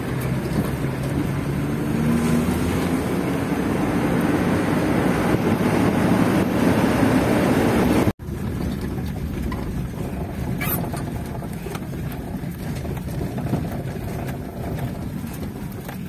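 Steady rumble of a vehicle driving on a dirt road, heard from inside the cabin. The sound breaks off briefly and resumes about eight seconds in.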